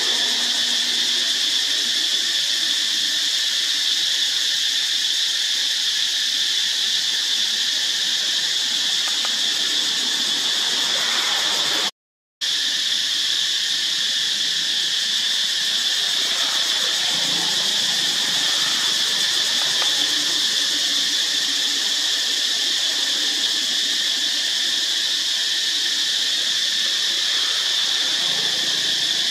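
A steady, high-pitched drone of insects calling, unbroken except for a brief dropout about twelve seconds in.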